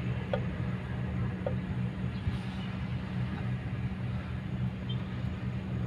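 Kobelco excavator's diesel engine running steadily with a low, even drone.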